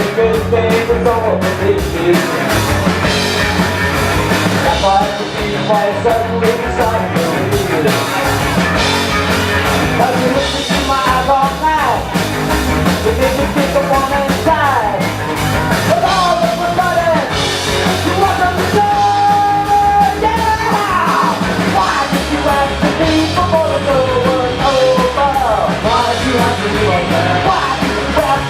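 Loud live rock music with singing and a full drum kit: a band playing punk-flavoured rock.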